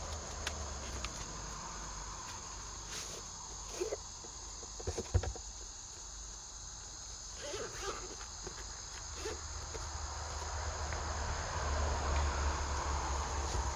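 Crickets chirring steadily and high-pitched in the background, with a few light knocks and clicks about four to five seconds in and again around eight seconds.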